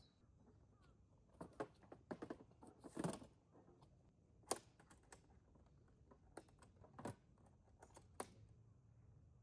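Faint, scattered clicks and light taps, irregular and a few at a time, with a brief rustle about three seconds in.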